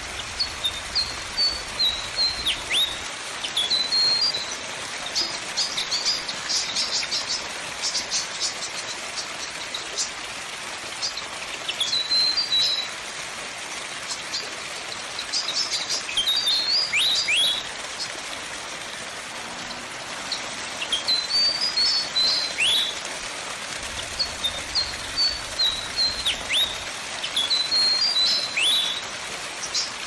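Sunda pied fantail calling: bursts of short, squeaky high chirps and sharp downward-sweeping notes, repeated every several seconds, with a quick run of high ticking chips about six to ten seconds in. A steady hiss lies behind.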